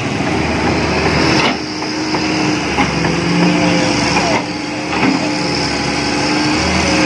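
Hitachi hydraulic excavator running as it works its boom and bucket in the soil, a steady engine note with a held tone over it and a few faint knocks. The sound dips briefly twice, about a second and a half and four and a half seconds in.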